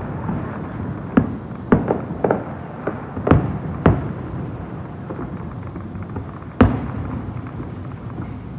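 Fireworks shells bursting: irregular sharp bangs, about seven of them, some with a rumbling echo, the loudest about six and a half seconds in.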